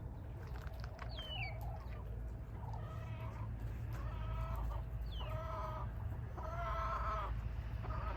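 Backyard hens chattering: a string of drawn-out, wavering clucks about a second apart, with a couple of short high falling chirps, over a steady low rumble.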